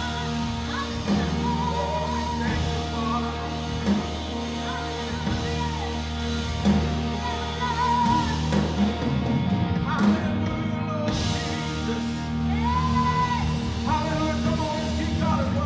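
Church worship music: singing over held low keyboard or bass notes.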